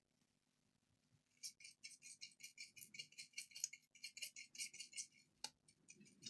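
A small brush scrubbing the power button connector on a laptop motherboard to clean off liquid-damage residue: quick, light scratchy strokes at about five a second that begin about a second and a half in and stop about five seconds in, followed by a single small click.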